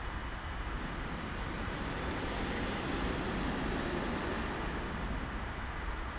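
A flatbed truck driving past close by: its engine and tyre noise swell through the middle and fade again, over steady road traffic noise.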